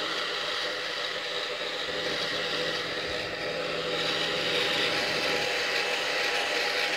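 Handheld hair dryer running steadily, its motor and fan giving a constant whir with a faint hum, blowing warm air over a wet puppy's fur.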